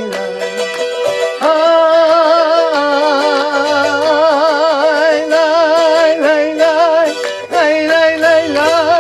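Arequipan folk song with a voice holding long notes with strong vibrato over strummed guitar. There is a brief break about seven and a half seconds in before the last held notes.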